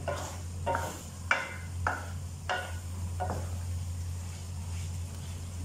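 Wooden spatula scraping and knocking against an aluminium karahi as potatoes and aubergine are stirred and fried, about six strokes in the first three seconds, then only a steady low hum.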